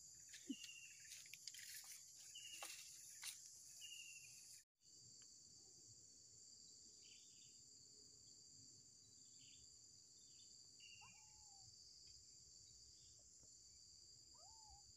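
Faint, steady high-pitched insect chorus of crickets, with short bird chirps repeating about once a second in the first few seconds and a couple of brief falling calls later on. The sound drops out for a moment about five seconds in.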